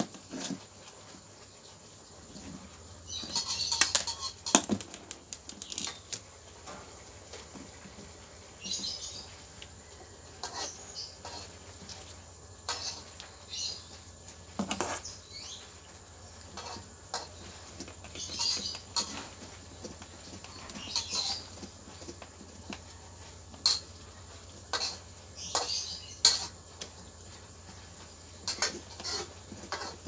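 Hand screwdriver turning screws back into the plastic housing of a twin-tub washing machine's wash gearbox: irregular clicks and short scratchy scrapes, some in quick clusters, over a faint steady low hum.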